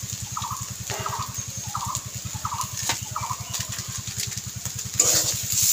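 Domestic fowl calling in short repeated calls, over a steady low rhythmic hum. About five seconds in, a metal spoon starts scraping and stirring the samosa filling in an iron kadai.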